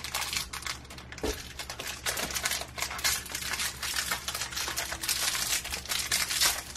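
Thin plastic blind-bag wrappers crinkling as two people pull them open by hand, a dense, irregular crackle.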